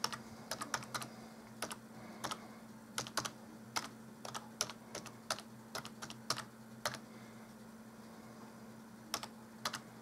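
Typing on a computer keyboard: quick, irregular runs of keystrokes, a pause of about two seconds, then a few more keys near the end. A faint steady hum lies underneath.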